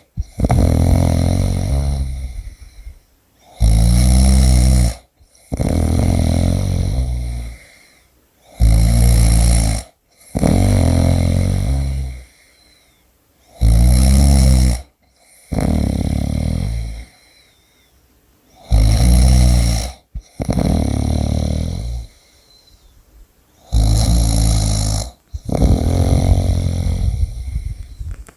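A person snoring loudly in a repeating cycle about every five seconds: a short loud snore, then a longer one that trails off, then a pause.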